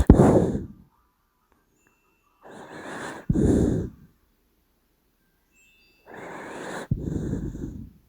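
A sleeping dachshund snoring: three breaths about three seconds apart, each a soft hiss that breaks suddenly into a louder, low rasping snore.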